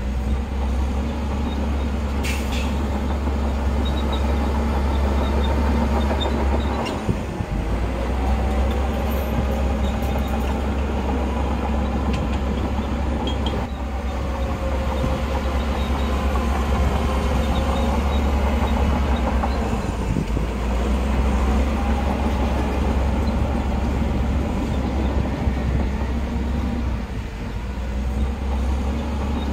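Heavy diesel earthmoving machinery running under load: a deep, steady engine drone whose pitch rises and falls as the engine works, easing off briefly about seven seconds in.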